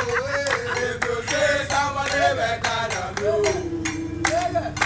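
A group of restaurant waiters singing a birthday song together in chorus, with steady rhythmic handclaps about four a second.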